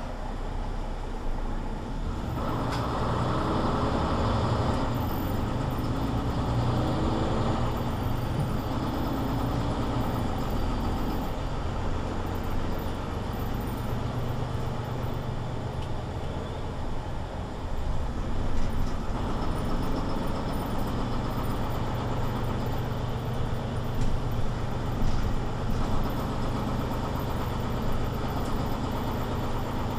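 Mercedes-Benz Citaro C2 city bus running in service, with a steady low engine hum and drivetrain noise that gets louder about two seconds in, and a few short knocks late on.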